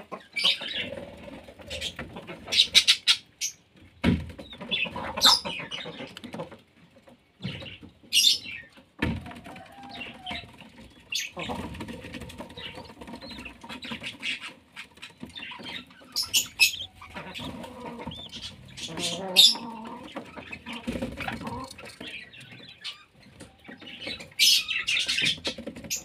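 Budgerigars chirping and squawking on and off in short, high calls, with a couple of sharp knocks.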